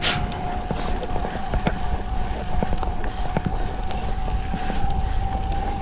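Electric mountain bike's motor whining steadily under assist level 7 on a steep climb, its pitch creeping slightly higher, over low wind rumble on the microphone and scattered clicks and knocks from the bike on the rough trail.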